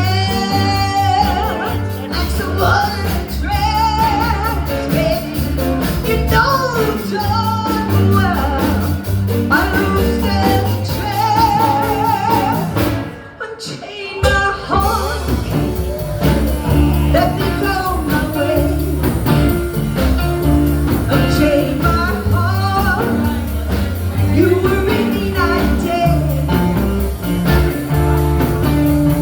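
Live blues band playing: bass and drums under a wavering lead melody. The music drops away briefly about halfway through and then starts up again.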